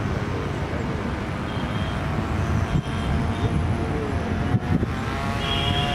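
Small O.S. Max 15LA two-stroke glow engine running steadily as it drives a model airboat's propeller. A clearer, high-pitched whine comes through near the end.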